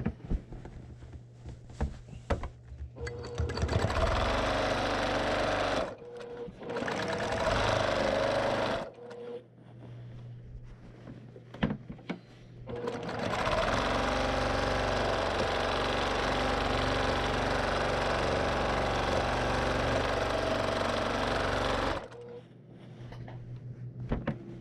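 Brother PQ1500SL straight-stitch sewing machine stitching fast in free-motion quilting, in three runs: two short runs of about two seconds each early on, then one long steady run of about nine seconds. Small clicks in the pauses between runs.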